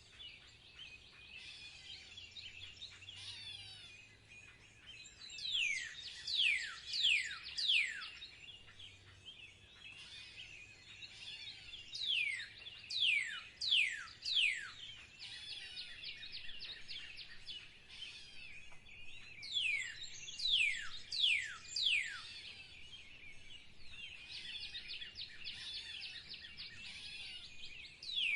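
Birdsong: one bird repeats a loud, steeply falling whistled note in runs of about five, every six or seven seconds, over steady chirping from other birds.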